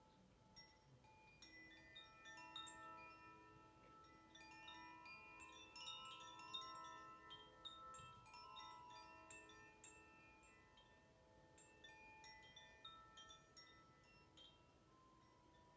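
Hand-held cylindrical wooden wind chime swung gently, its inner rods struck at random and ringing in soft, overlapping tones that linger, busiest in the middle.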